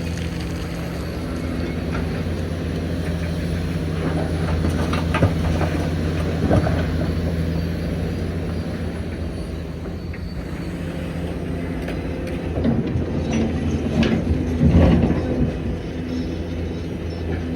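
Hitachi Zaxis 490LCH excavator's diesel engine running steadily under work, with scattered clanks and knocks that come thicker and louder a few seconds before the end.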